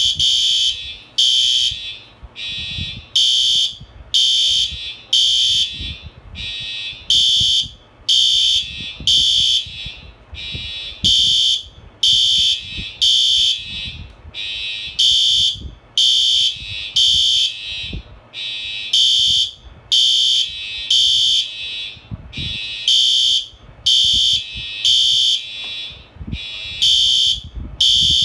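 Fire alarm sounding a high-pitched electronic beeping tone that pulses on and off in a repeating pattern of beeps and short pauses.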